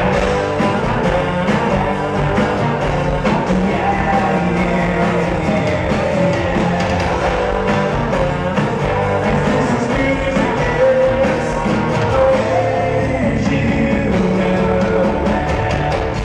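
Rock band playing a song live in an acoustic arrangement: strummed acoustic guitars under a sung lead vocal, heard from the audience.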